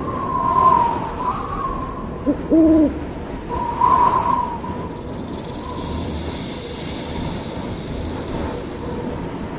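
Owl calls: repeated wavering calls at one fairly high pitch, with a short lower two-note hoot about two and a half seconds in. A steady high hiss comes in about halfway through and carries on to the end.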